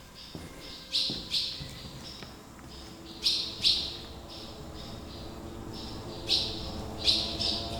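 Swallows chirping from their nests: short high calls, mostly in quick pairs, every second or two.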